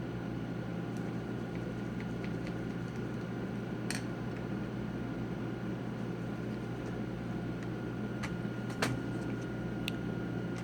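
A few faint, sharp clicks and taps of a small screwdriver and screws on a laptop's plastic and metal screen brackets during reassembly, over a steady background hum.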